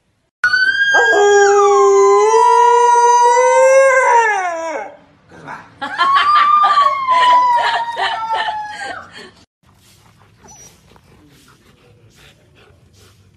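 A husky howling: two long howls of about four seconds each. The first holds its pitch and then slides down at the end. The second wavers up and down. The howling stops about nine and a half seconds in, leaving only faint scuffling sounds.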